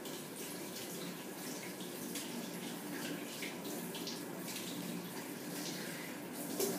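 Steady background noise with scattered faint ticks, and a sharper knock near the end.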